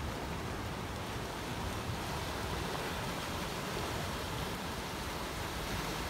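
Steady wash of sea surf against a rocky shore, with sea wind buffeting the microphone.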